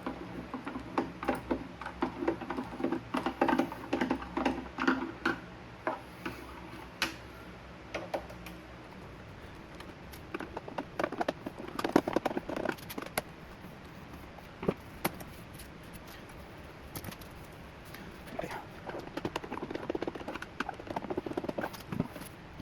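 Scattered clicks, taps and scrapes of a long-shafted Torx screwdriver working the screws out of a Macintosh Classic's plastic rear case.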